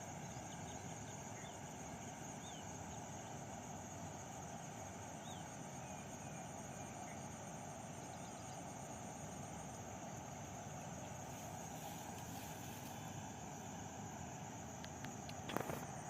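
Faint outdoor ambience: a steady high-pitched hum with a few short rising bird chirps over a low background hiss, and a couple of sharp clicks near the end.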